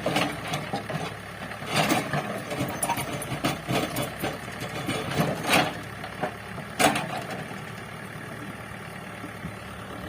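A heavy machine's engine running, with irregular clanks and knocks of demolition work over it. The loudest knocks come about two seconds in, near the middle and about seven seconds in, and after that only the engine hum is left.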